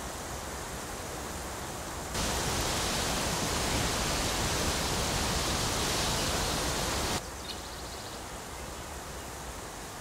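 Steady rushing of a flowing stream; it steps up louder about two seconds in and drops back about seven seconds in.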